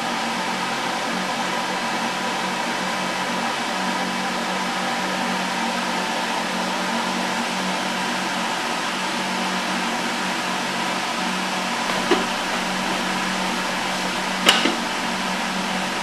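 Wall-mounted push-button electric hand dryer blowing steadily with a low hum. Two short clicks near the end.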